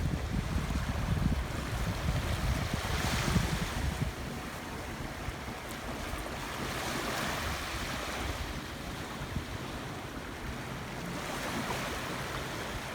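Wind buffeting the microphone, rumbling and gusting for the first few seconds, then easing into a steady rush that swells and fades twice.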